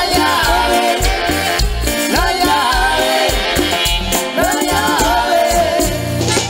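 Live Latin dance band music with a steady, pulsing bass beat and a gliding melodic lead line over the rhythm, with no sung words.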